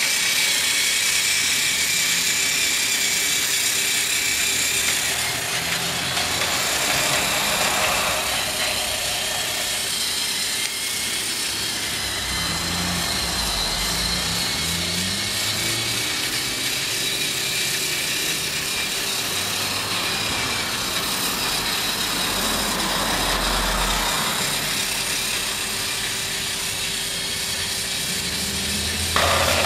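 Tomy Trackmaster battery toy locomotive running along plastic track pulling a train of coaches: a steady whirr of its small electric motor and gearbox with a thin whine, and the wheels rattling on the track.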